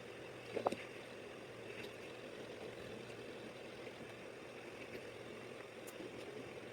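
Steady low ambient background noise, with one light tap about two-thirds of a second in.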